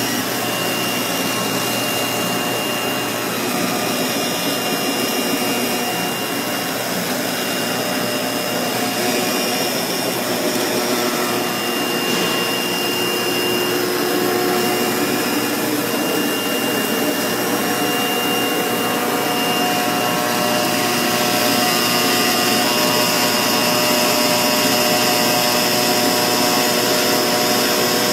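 CNC foam-cutting machine running while its cutting head works through a sheet of foam: a steady whirring machine noise with a thin high whine, growing slightly louder in the second half.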